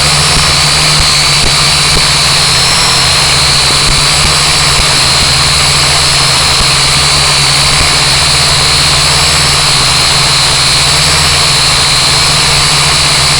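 Blade mQX micro quadcopter's motors and propellers whining steadily in flight, the high pitch wavering slightly up and down with the throttle.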